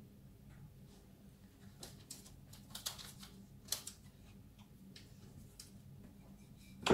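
Faint scattered taps and rustles of hands handling scone dough and setting cut scones on a greaseproof-paper-lined baking tray, with one sharp knock at the very end.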